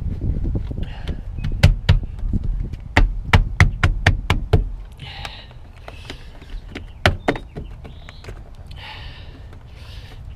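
A quick run of sharp taps and knocks as foil-faced butyl sound-deadening mat is pressed down onto a car's sheet-metal floor pan, then one more knock and some rustling of the foil sheet in the second half.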